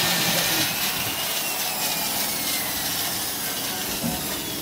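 Corded electric drill running steadily, its bit boring into a wooden plank wall, with a faint motor whine that wavers slightly in pitch.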